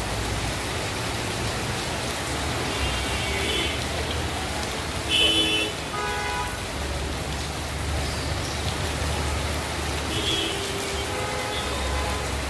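Steady rain on the road, with motor traffic rumbling past. About five seconds in there is a brief, high-pitched tonal sound, and a few fainter short tones follow later.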